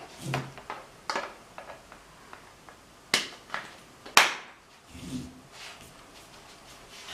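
Handling noises from an old articulated metal desk lamp: a series of separate sharp clicks and knocks, the loudest about four seconds in.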